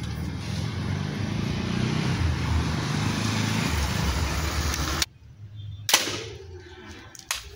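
A steady rumbling hiss. Then a homemade PVC speargun is fired at a plastic bottle target: one sharp crack, and about a second and a half later a smaller sharp hit.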